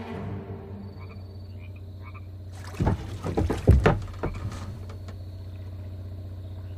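Frogs croaking over a steady low hum. A burst of sudden knocks and thuds comes about three seconds in and lasts a second or two, the loudest sound here.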